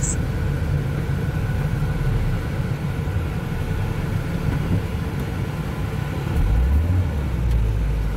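Steady engine and road rumble of a vehicle heard from inside its cab while driving, with the low rumble swelling louder about six and a half seconds in.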